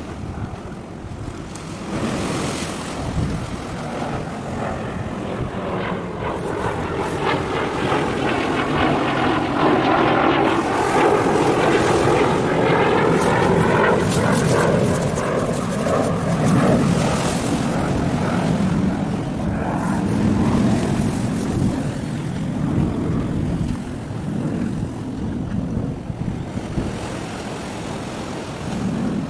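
An aircraft passing over, its engine noise swelling for several seconds, loudest around the middle, then fading away.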